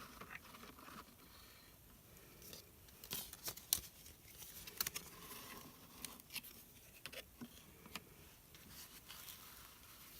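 Objects and paper packaging handled on a table: scattered light taps and clicks with soft crinkling and rustling between them.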